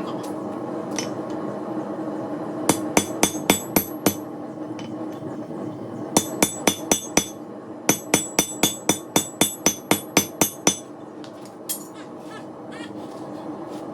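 Hammer blows driving a piece of steel lawn mower blade onto a hot-cut tool to cut it, each strike ringing. The blows come in three runs of quick strikes, about four a second, the last and longest run of about a dozen blows, over a steady hum.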